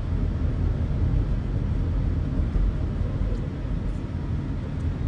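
Car cabin noise while driving: a steady low rumble of the engine and tyres on the road.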